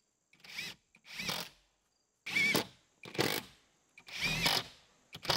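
Cordless impact driver driving 2-inch screws through cement-based Hardie board siding to tack the sheet to the wall, run in five short trigger bursts with its motor whine rising and falling each time.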